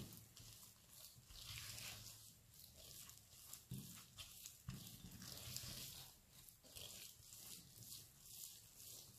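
Faint scraping and squishing of a silicone spatula stirring thick cocoa dough in a glass bowl, in repeated strokes roughly once a second.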